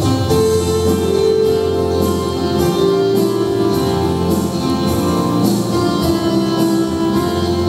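Instrumental interlude of a children's worship song's backing music: held pitched notes over a steady bass line, with a light, even percussion beat and no voice.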